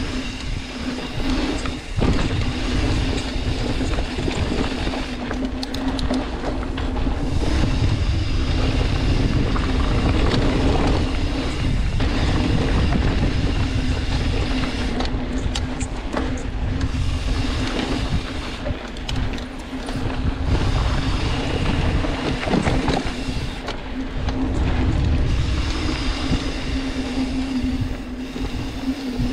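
Steady ride noise: wind buffeting the microphone over a constant low hum, with scattered rattles and knocks.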